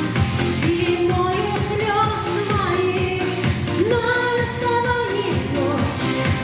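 A pop song: a sung melody over a steady beat.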